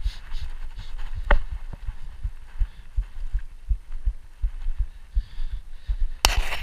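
Dull low thumps of footsteps over wet sand and shallow water, about two or three a second, picked up through a body-worn GoPro. Near the end a harsh scraping rustle begins as a hand handles the camera.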